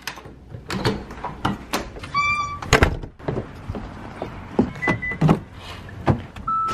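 A house door opened by its knob, footsteps down wooden steps and a car door opened: a run of latch clicks, knocks and footfalls, with a short beep about two seconds in and another short beep near the end.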